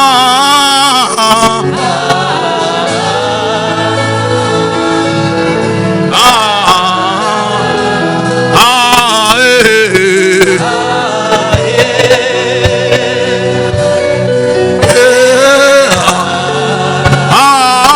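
Gospel music with a sung vocal line over sustained instrumental accompaniment, the voice wavering with vibrato.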